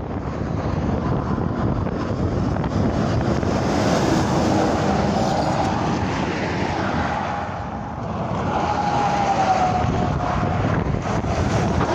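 Heavy highway traffic going past close by: a steady rush of tyre and engine noise that swells twice as vehicles pass, with a faint whine that falls slightly in pitch as each goes by. Wind buffets the microphone.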